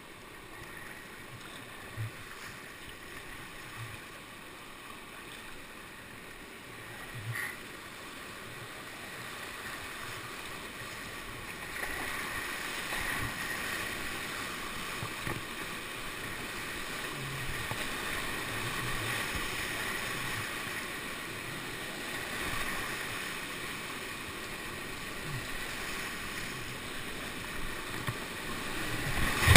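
Rushing whitewater of a river rapid, heard from a kayak running it. It grows louder about twelve seconds in and stays loud, with a few short knocks early on.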